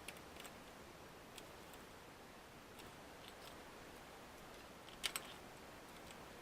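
Faint scattered clicks and taps of tools and small parts being handled during a Chromebook teardown. The sharpest is a quick double click about five seconds in, over a steady low hiss.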